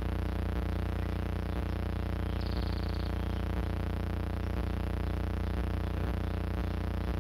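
Background music: a sustained, unchanging drone with a soft pulse about twice a second. A brief high chirp sounds a little over two seconds in.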